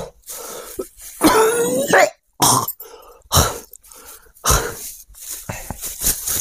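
A man coughing and retching in repeated bouts, one longer retch with his voice sliding in pitch about a second and a half in. It is his body's reaction after eating a burger with Blair's Sudden Death hot sauce.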